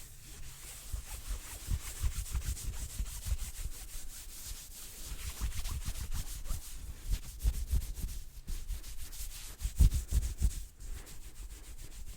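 Hands rubbing quickly close to a very sensitive microphone: a dense run of brushing, rustling strokes with soft low thuds, loudest a little before the end.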